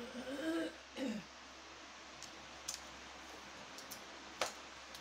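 A brief murmur of a woman's voice, then a few scattered light clicks and taps as a bamboo bed tray is handled and its folding legs are moved.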